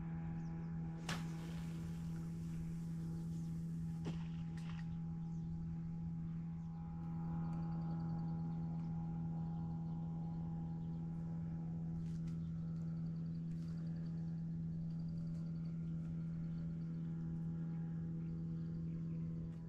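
A steady low hum with a stack of even overtones, unchanging throughout. A brief rustling hiss with a couple of clicks comes in the first few seconds, and faint short high chirps recur several times.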